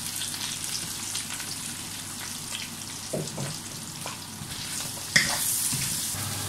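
Chanterelle mushrooms, onion and bell pepper sizzling in hot oil in a wok, stirred with a wooden spatula, with a few scraping strokes. A sharp knock a little past five seconds in.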